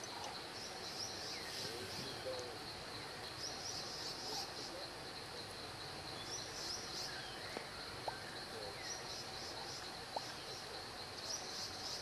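Insects chirping in short, high, buzzy bursts that recur every two to three seconds over a steady outdoor hiss. Faint short whistled calls come through now and then, and there are two sharp clicks in the second half.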